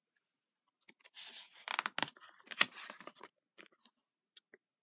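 A page of a glossy paperback picture book being turned: a paper rustle with two sharp snaps of the page, then a few light taps as it settles.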